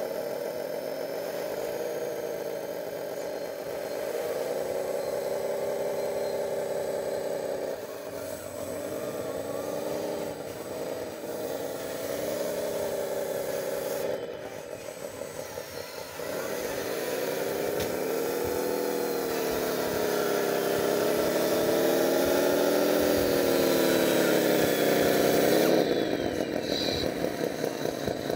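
Radio-controlled model crawler bulldozer running, its drive sound rising and falling in pitch as it is throttled back and forth. It dips briefly twice and cuts off suddenly near the end.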